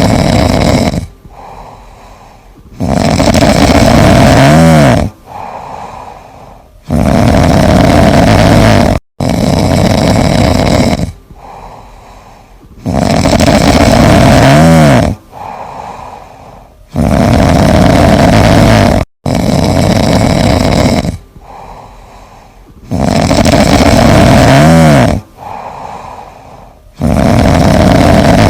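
Loud snoring: long noisy breaths, each cycle with a brief snort whose pitch rises and falls, repeating the same way about every ten seconds.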